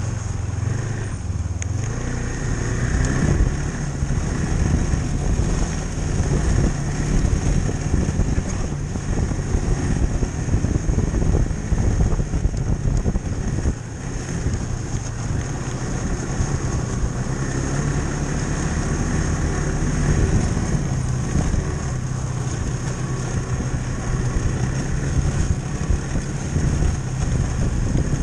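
Snowmobile running along a trail at riding speed, a steady engine drone whose pitch shifts up and down a few times with the throttle.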